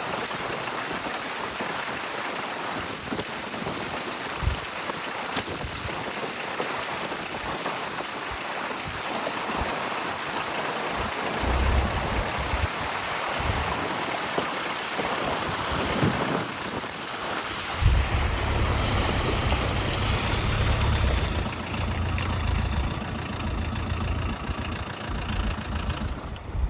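Rainwater runoff rushing along, a steady loud hiss of flowing water. From about two-thirds of the way in, a heavy low rumble sits under it.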